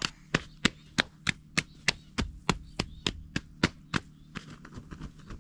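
Hands slapping and brushing sand and dirt off clothing: a steady run of sharp slaps, about three a second.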